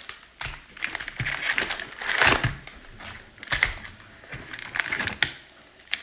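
Packaging of a trading-card hobby box crinkling and crackling in irregular bursts as the box is opened and its wrapped packs are handled.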